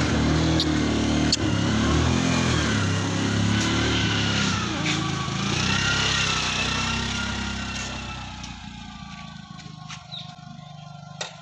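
Motorcycle engine running close by, then pulling away and fading into the distance over the last few seconds.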